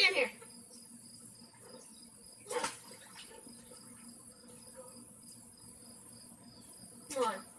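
Insects trilling steadily in the background, a thin high-pitched drone. A brief loud cry with falling pitch comes at the very start and again near the end, with a short sound about two and a half seconds in.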